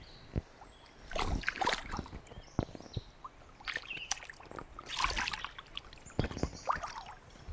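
Uneven splashing and sloshing of shallow creek water from a hooked smallmouth bass thrashing at the surface as a hand reaches in to grab it, with several sharp splashes.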